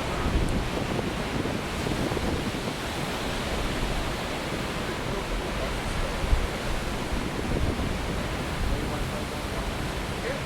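Continuous rush of big winter storm waves breaking, with wind noise on the microphone adding a low rumble. There is a brief louder surge about six seconds in.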